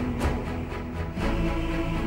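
Background music with a steady beat of about two hits a second over held notes, with a change of chord about a second in.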